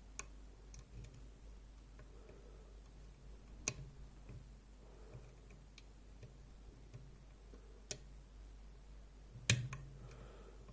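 Faint, scattered metal clicks and ticks of a lock pick working inside a DOM iX6SR dimple lock, probing for the lock's rear interactive element without setting it. A few sharper clicks stand out, the loudest about nine and a half seconds in.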